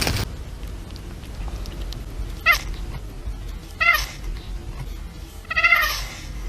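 A cat meowing three times, the last call longer than the first two.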